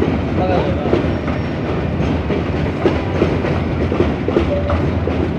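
Meter-gauge passenger coaches of the Upakul Express rolling slowly over the rails: a steady rumble with a clickety-clack of wheels over rail joints and short squeaks now and then.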